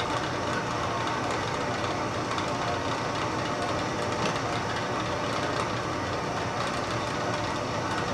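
Small Harbor Freight metal-cutting band saw running steadily as its blade cuts through steel bar stock; the saw is almost worn out.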